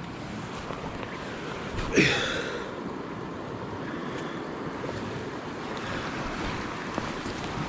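Mountain stream water rushing steadily, with one sudden louder sound about two seconds in.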